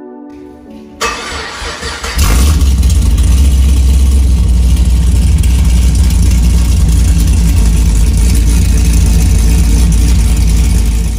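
A car engine cranking, catching about two seconds in, then running loud and steady until it cuts off suddenly.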